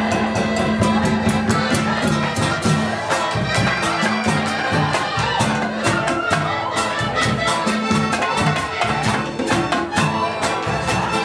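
Live band music: drum kit, congas and large barrel drums keep a busy, steady rhythm while a flute plays the tune over held notes from the rest of the band.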